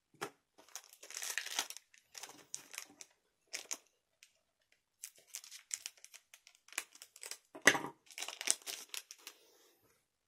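Foil trading-card booster pack wrapper crinkling and tearing as it is opened and handled, in irregular scratchy bursts with one sharp loud crackle about three-quarters of the way through.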